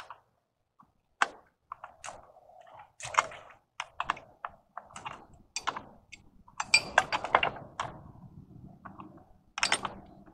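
Pipe wrenches working threaded steel pipe fittings and a brass ball valve as they are tightened: irregular metal clicks and knocks, busiest around seven seconds in.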